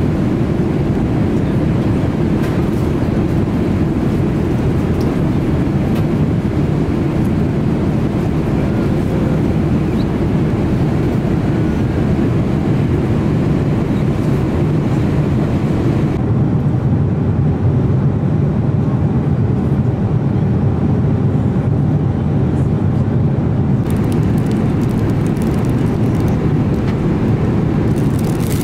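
Steady low cabin noise of a Boeing 777-300ER in flight, the constant rumble of engines and airflow through the fuselage. Near the end a crinkle of plastic packaging is handled.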